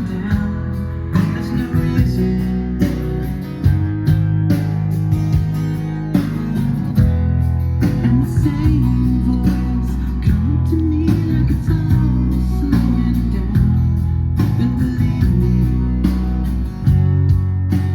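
Guitar-led recorded music with a heavy, sustained bass line, played back loud through Cerwin-Vega 2000/12 speakers driven by an Adcom GFA-555 power amplifier, as a listening test after repair.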